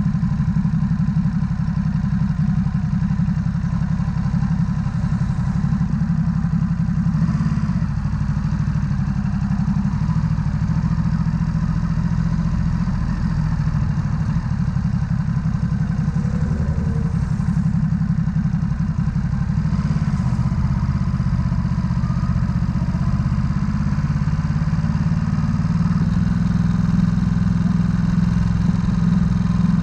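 Ducati Supersport S's L-twin engine running steadily at low road speed, heard from the rider's position, with small swells in level and no sharp events.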